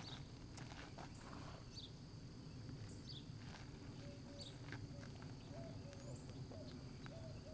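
Faint clicks and rustles of a western saddle and stirrup being handled on a standing mule, over a low steady hum. Short faint high chirps recur about once a second, and from about halfway a short low call repeats about twice a second.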